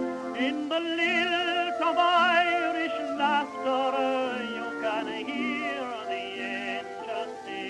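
Background music: a wavering, vibrato-laden melody over held notes, with no words sung.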